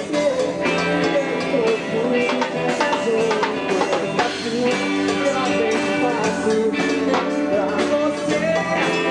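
Live band music with drums and a man singing into a microphone, loud and continuous.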